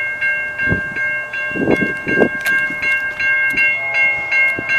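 Railroad grade-crossing bell ringing in an even rhythm of two or three strikes a second: the crossing is activated for an approaching train. A few low thumps come in the first half.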